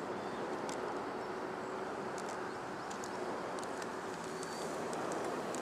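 Quiet open-air ambience with a faint steady hiss and scattered short, high bird chirps rising from below.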